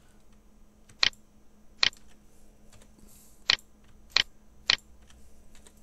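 Computer mouse and keyboard clicks: five sharp, separate clicks at uneven spacing, from mouse button presses and key presses while edges are selected and faces filled in a 3D modelling program.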